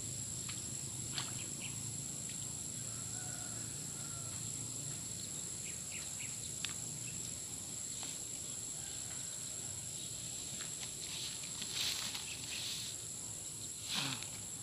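Steady chorus of insects, heard as two constant high-pitched tones, with a few faint clicks and some short noisy bursts near the end.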